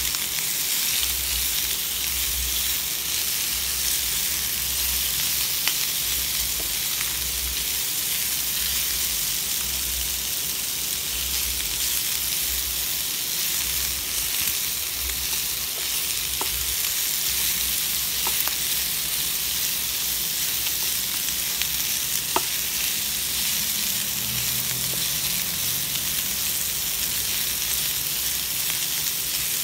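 Pieces of marinated chicken breast sizzling steadily as they fry in oil in a pan. A few light clicks of the spatula against the pan as the pieces are stirred.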